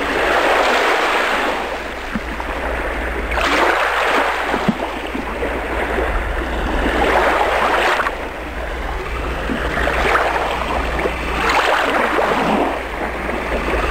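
Lake waves washing in repeated surges that swell and fade every few seconds, over a steady low rumble.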